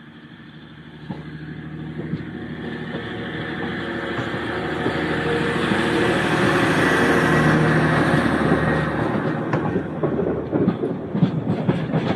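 TransPennine Express Class 185 diesel multiple unit approaching and passing close by: its engine drone builds steadily over the first several seconds, then a fast clickety-clack of wheels over rail joints sets in as the carriages go past.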